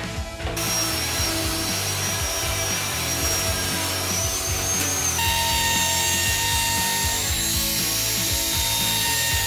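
Power tools on a wooden drawer over background music: a random orbit sander running on the drawer side with a steady high whine, then, about five seconds in, a compact router running along the drawer edge with a different steady whine.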